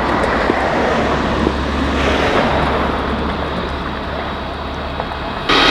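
Steady engine rumble over a constant low hum, with a noisy hiss over it. About five and a half seconds in it cuts abruptly to a louder engine drone with steady tones.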